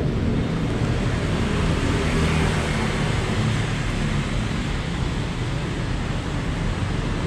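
Steady street traffic noise: an even rumble and hiss of passing vehicles.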